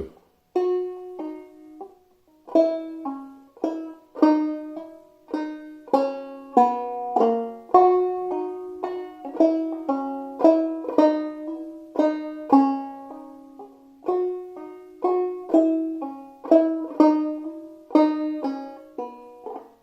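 Five-string banjo tuned eCGCD, played clawhammer style: a melody phrase of a jig picked out as separate, ringing notes at a moderate, even pace.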